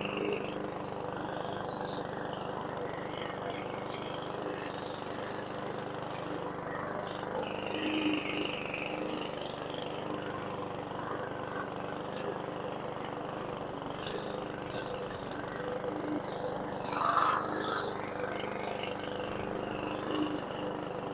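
PowerSmart 144 cc single-cylinder lawn mower engine running steadily at a constant speed, its carburetor freshly cleaned of contaminated fuel.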